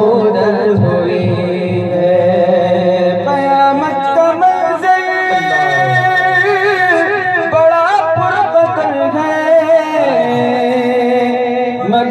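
A male voice sings an Urdu devotional naat into a microphone, drawing out long held notes that waver and glide in pitch.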